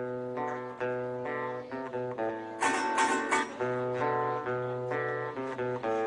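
Venezuelan cuatros, small four-string guitars, playing calypso: chords and picked notes that change every half second or so, with heavier strumming about halfway through.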